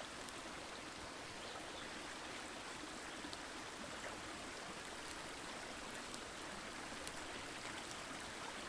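Forest stream flowing steadily, with a few sharp crackles from a wood campfire scattered through it.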